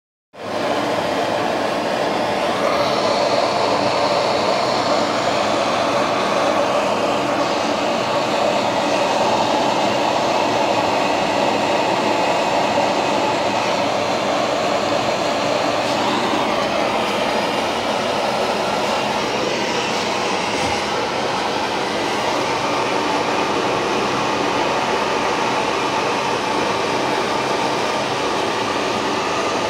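Kitchen extractor hood fan running at full speed: a steady, loud rushing noise.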